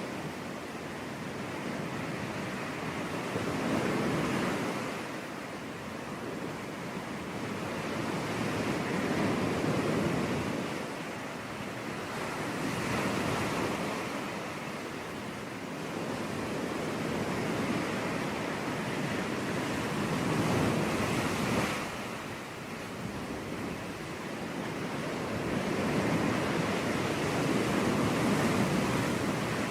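Sea waves breaking and washing on a beach, the surf swelling and easing every four to five seconds.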